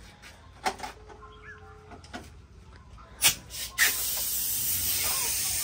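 A few light knocks and clatters of handled parts, then about four seconds in a compressed-air blow gun on a coiled shop air hose starts a steady, loud hiss, blowing out an engine filter that has just been washed.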